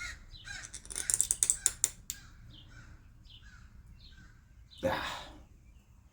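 Small plastic carburetor parts being handled and cleaned, with a quick cluster of sharp clicks and rattles about a second in and a short burst of rushing noise near the end. Birds chirp faintly in the background.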